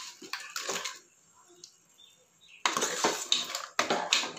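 Steel ladle scraping and clinking against the inside of a pressure cooker pot while stirring crab pieces in masala paste. There are a few short strokes, a pause of about a second and a half, then steadier scraping near the end.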